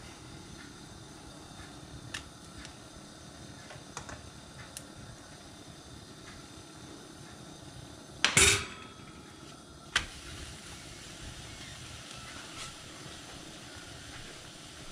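Turning a thin milk pancake by hand in a frying pan: light clicks and taps of the spatula and pan, a short loud rush of noise about eight seconds in as the pancake is laid back down in the pan, and a sharp tap about two seconds later, over a faint steady hiss.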